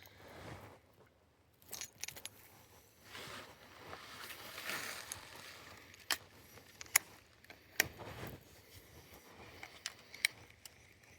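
Handling noise: soft rustling, then a few sharp, separate clicks in the second half, the crispest about seven and eight seconds in.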